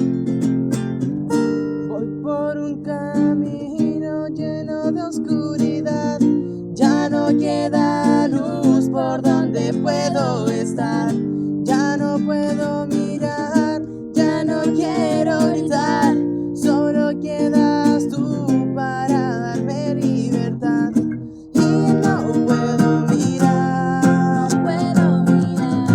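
A song played on strummed acoustic guitar, with a voice singing the melody over it. The music drops out briefly about three-quarters of the way through, then comes back in.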